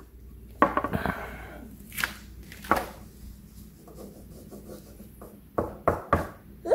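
Chunky crayons knocking and scraping on paper laid over a hard board as a toddler scribbles: a scratchy rub about half a second in, then separate sharp taps, with three or four close together near the end.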